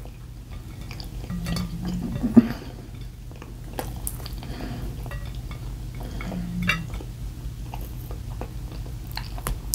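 A person chewing breakfast food, with scattered small clicks and clinks of dishes and cutlery; one sharp clink about two and a half seconds in.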